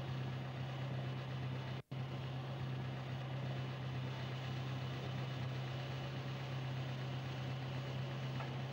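Steady low hum with hiss from an old video recording, unchanging throughout, broken by a momentary dropout to silence about two seconds in.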